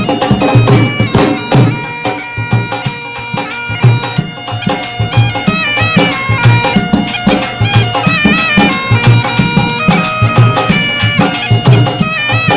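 Background music: a reedy, droning wind-instrument melody over a steady low drum beat.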